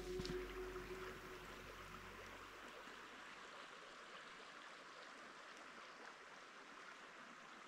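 Background music fading out over the first two seconds, leaving the faint, steady rush of a small forest stream.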